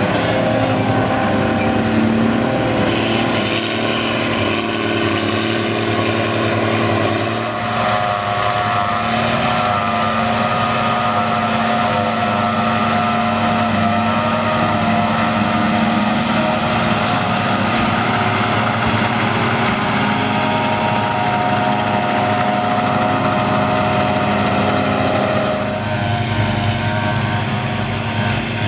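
John Deere self-propelled forage harvester running at full working revs while picking up and chopping grass for silage, together with the tractor pulling the trailer alongside: a loud, steady drone of engines and cutterhead. The sound shifts in character twice, at cuts between clips.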